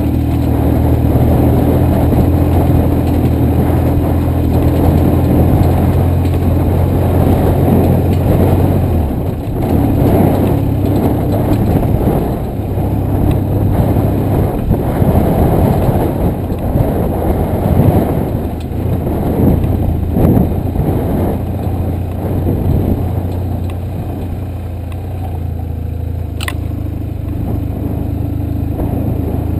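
BMW motorcycle engine running steadily as the bike rides a rough, rocky dirt track, heard from a camera on the bike with wind and the clatter of the machine over stones. The engine note changes about nine seconds in and the ride grows rougher for a while, and a single sharp click comes near the end.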